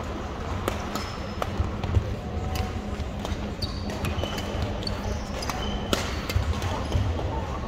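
Badminton play on a gym court: several sharp racket hits on the shuttlecock, short high sneaker squeaks on the floor and footfalls, over the steady low hum of a large sports hall.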